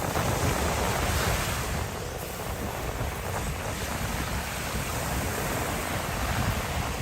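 Steady wind noise buffeting the microphone, with a rushing like surf behind it.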